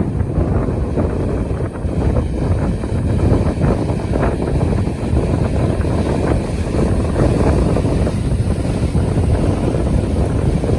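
Wind blowing across the microphone: a loud, steady rumbling buffet with no distinct events.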